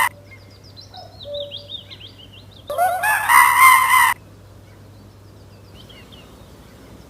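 Monkey calls: a loud, harsh call lasting about a second and a half about three seconds in, with the tail of another at the very start. Faint high bird chirping runs between them.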